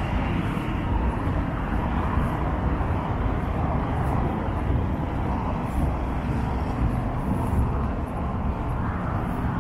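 Steady, continuous noise of busy city street traffic, with engines and tyres blending into one even wash of sound.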